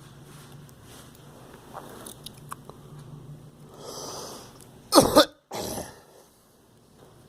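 A girl coughing: a soft breath about four seconds in, then a sharp, loud double cough about five seconds in, followed by a shorter, softer burst. A few faint clicks come earlier.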